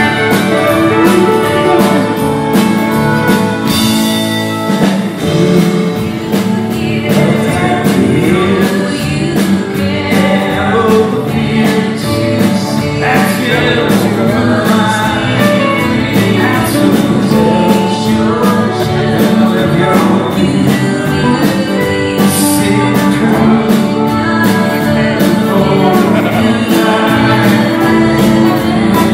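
Live band playing a country-rock ballad: strummed acoustic guitar and electric guitars under lead and backing vocals.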